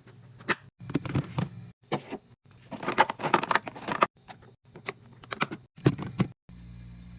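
Quick taps, clicks and crinkling of packaged drinks and snacks being handled and set into a mini fridge, in short bursts that stop abruptly, with a dense patch of crinkling about three seconds in. A steady low hum comes in near the end.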